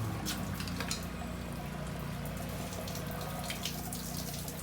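Liquid dripping and trickling in small irregular drops, over a steady low hum.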